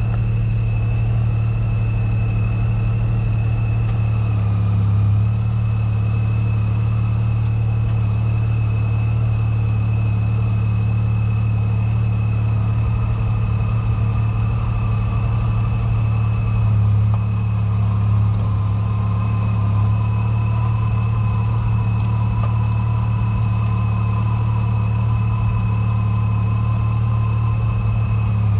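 Side-by-side UTV engine running steadily at a constant speed, with a steady high whine over the engine note.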